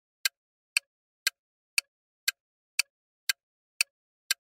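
Ticking sound effect of a countdown timer: short sharp ticks, about two a second, evenly spaced, with silence between them.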